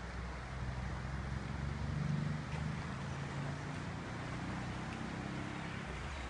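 Low engine rumble of a motor vehicle, swelling slightly about two seconds in, over steady outdoor background noise.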